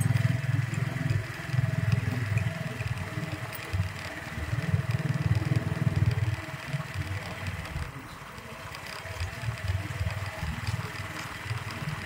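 Small motorbike engine running while riding, louder for the first six seconds and quieter after that.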